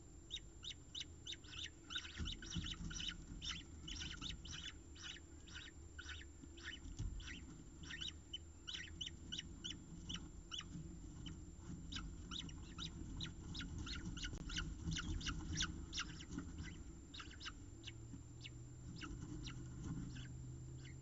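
Peregrine falcon chick begging for food with rapid, high-pitched chirps, about four a second, thinning out near the end. Low thumps of birds moving run underneath.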